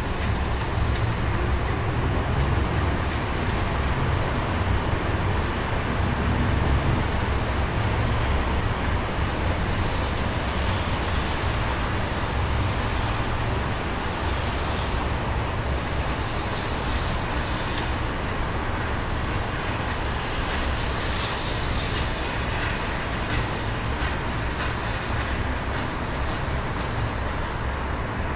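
Steam-hauled train moving slowly along the line, heard at a distance over a steady low rumble.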